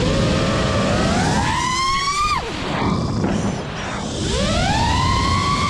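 FPV quadcopter's brushless motors whining under throttle: the pitch climbs steadily, cuts off sharply about two and a half seconds in, then sweeps up again about four seconds in and holds high. A steady rushing noise runs underneath.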